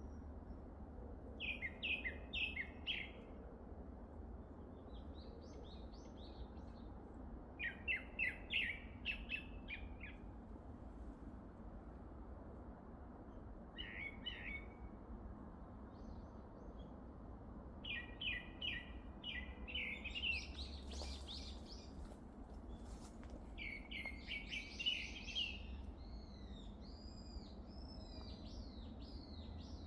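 Songbirds singing in a spring forest: short bursts of rapid, high chirping notes come every few seconds, and near the end another bird starts a run of repeated looping whistled notes, a few a second. A steady low hiss lies underneath.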